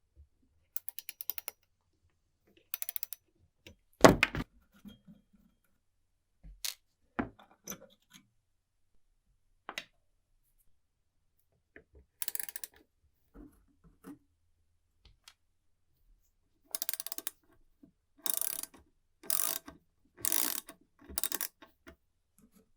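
Old mechanical alarm clock's winding ratchet clicking rapidly in several short bursts, most of them close together near the end, with a loud knock about four seconds in.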